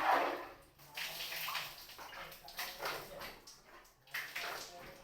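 Water splashing in a bathroom, coming in four or five uneven surges, each lasting under a second.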